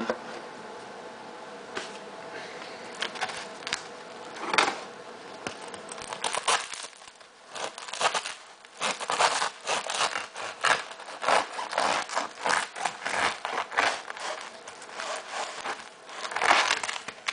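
Serrated bread knife sawing through a crusty sourdough loaf, its hard crust crackling and crunching under the blade. After a few scattered scrapes it becomes a quick run of scratchy strokes from about six seconds in, with a loud crunch near the end.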